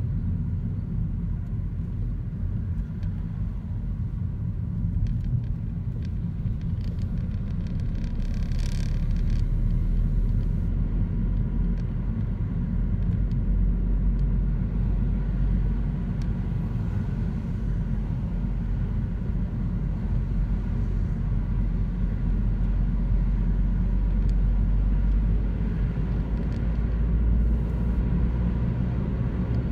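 Car interior noise while driving: a steady low engine and road rumble that swells somewhat in the second half, with a brief hiss about nine seconds in.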